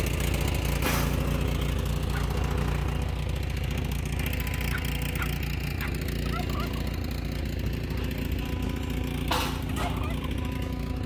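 An engine idling steadily, with a few faint chirps from the poultry around the middle and two sharp knocks, about a second in and near the end.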